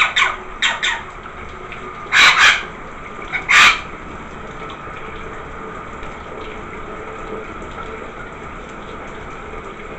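Steady hiss of a shower running, broken by loud splashes as a rainbow lorikeet flaps its wings in a small plastic tub of water. There are three quick splashes at the start and two bigger bursts about two and three and a half seconds in.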